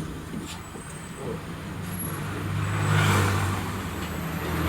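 Road traffic: a vehicle engine running with a steady low hum, swelling louder about three seconds in and then easing off.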